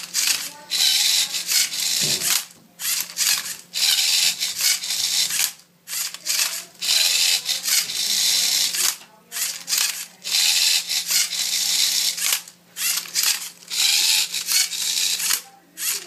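LEGO Mindstorms NXT servo motors whirring in a string of short bursts, each about a second long, as the robot tips and twists a Rubik's cube, with the plastic cube layers rasping as they turn. A faint steady low hum lies underneath.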